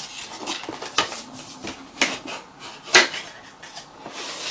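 Cardboard headphone box being pulled open by hand: flaps scraping and rustling, with sharp taps of cardboard about once a second.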